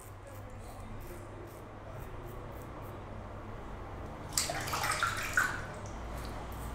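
Double-edge safety razor with a Wizamet Super Iridium blade scraping through lathered stubble, quiet at first, then a louder rasping stroke about four seconds in that lasts about a second.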